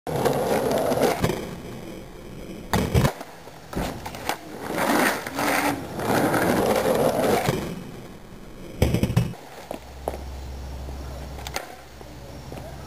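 Skateboard wheels rolling on coarse asphalt, with sharp clacks of the board popping and slapping down on the street about three seconds in and again near nine seconds: flip trick attempts (hardflips, switch tre flips).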